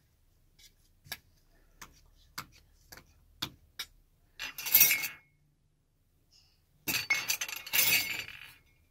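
Metal spoons clinking against each other and against a steel serving platter. First comes a run of light, separate taps, then two denser bursts of clatter, the second and longer one near the end.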